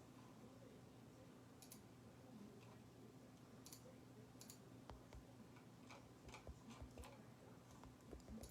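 Near silence: faint room tone with a low steady hum and scattered soft clicks, more frequent in the second half.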